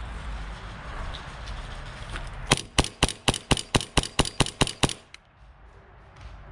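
Airsoft gun firing a rapid string of about eleven sharp shots, some four or five a second, starting about two and a half seconds in and stopping near five seconds, over low rumbling noise.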